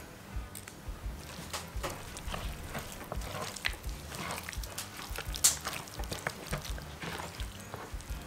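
Hands working yellow mustard into raw beef short ribs: wet squelching and slapping of meat on a wooden cutting board, in many short irregular sounds, the sharpest about five and a half seconds in.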